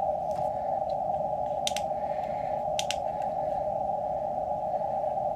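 QRP Labs QMX+ transceiver receiving: steady band-noise hiss through its narrow CW audio filter, a pitched hiss with no signal in it. A few sharp clicks about two and three seconds in as its front-panel controls are pressed.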